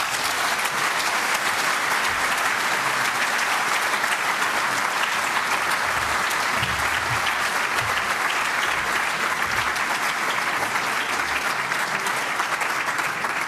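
A lecture-hall audience applauding steadily for about fourteen seconds, a dense even clapping that fades out just after the end.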